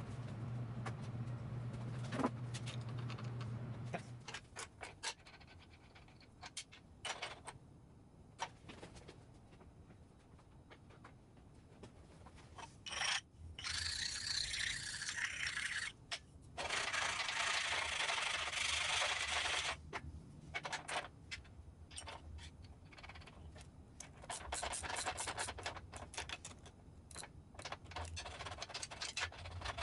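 Hand work on a combination bandsaw's steel vise: scattered clinks and taps of metal parts, two stretches of metal rubbing and scraping as thick steel plates are slid against the vise jaw, and a run of rapid clicks from a socket ratchet tightening a nut onto the clamping-jaw stud near the end. A low steady hum sounds for the first few seconds.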